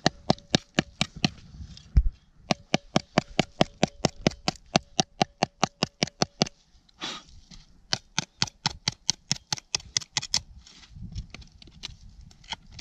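A small metal tool tapping rapidly on the stuck lid of a rusted steel canister, about five sharp taps a second with a faint metallic ring. The taps stop briefly midway and resume for another couple of seconds, working the corroded lid loose.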